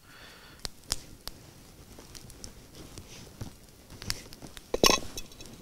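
Light handling sounds of food preparation: a few soft clicks and taps, then a louder clatter of a knife against a wooden plate near the end as it cuts a piece of lavash.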